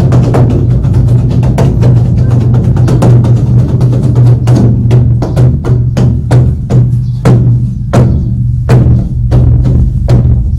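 Korean drum (buk) being beaten: a fast, dense run of strokes that thins about four seconds in into separate heavy strikes, spaced further apart toward the end, over a steady low boom.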